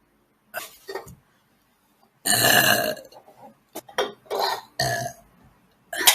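A woman burping again and again: a couple of short belches, then one long, loud burp about two seconds in, followed by several shorter ones.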